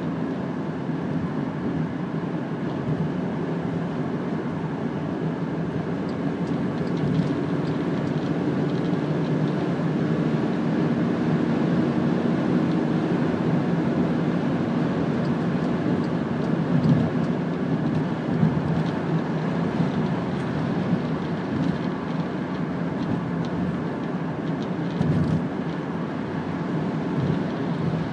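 A car driving at motorway speed: steady tyre and engine noise with a low hum, a little louder in the middle stretch.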